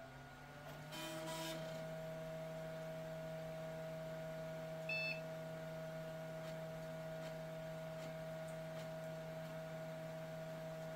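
Optical DVD-RW drive spinning a boot CD up to speed in a Dell Dimension XPS T550, its whine rising over the first second and then holding steady over the computer's hum. A short high chirp comes about five seconds in. The drive is reading the disc and working properly.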